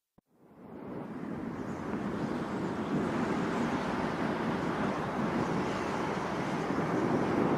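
After a brief click, a steady rushing noise fades in over about two seconds and then holds: a surf- or wind-like sound effect opening the next track.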